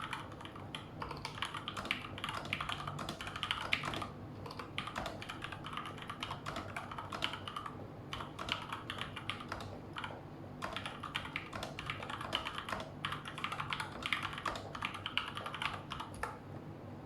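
Typing on a Cooler Master CK550 V2 mechanical keyboard with Gateron Red linear switches: a quick, continuous run of keystroke clacks with a few short pauses.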